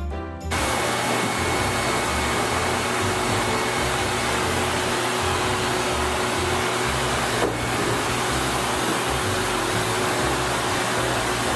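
Wall-mounted pet grooming dryer blowing air through its hose nozzle onto a husky's wet coat: a loud, steady rush of air with a faint steady whine. It comes in abruptly about half a second in and dips briefly once about halfway through.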